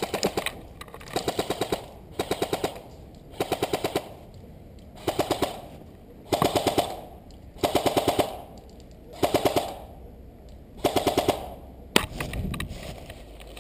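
Airsoft gun firing about nine short full-auto bursts of rapid clicks, each about half a second long, one every second or so.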